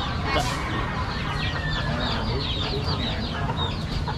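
Chickens clucking and calling over one another, a dense run of short high calls several times a second.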